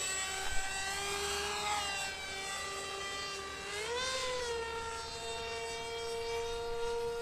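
X-UAV Mini Talon's electric pusher motor and 9x4.7 propeller whining steadily as the plane flies. About four seconds in, the pitch rises and holds at a higher steady tone. This prop setup is one the pilot finds underpowered.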